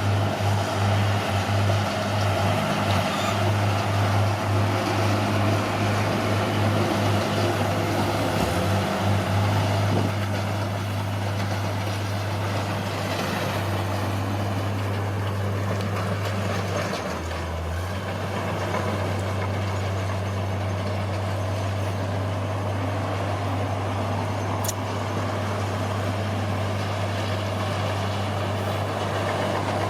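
Bulldozer's diesel engine running steadily, a little louder for the first third, its pitch dipping briefly about 17 seconds in.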